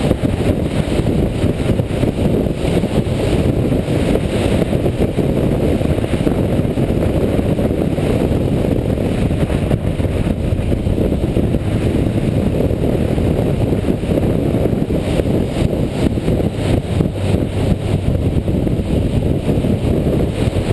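Suzuki GS500 parallel-twin motorcycle being ridden at road speed: a steady, loud, low rumble of engine and wind buffeting the onboard camera's microphone.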